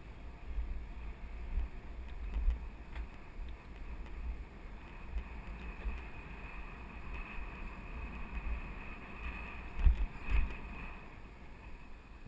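Wind buffeting an action camera's microphone as it moves down a paved road, with gusty low rumbling throughout. A faint high whine comes in about halfway, and there are two knocks about ten seconds in.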